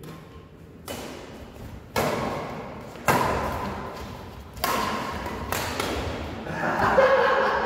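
Badminton rackets striking a shuttlecock in a rally: five sharp hits, about one to one and a half seconds apart, each followed by a short echo.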